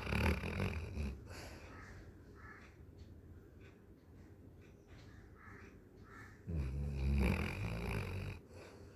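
A sleeping Labrador retriever snoring: two loud, low snores about six seconds apart, the first about a second long and the second nearly two seconds long, with softer breathing between.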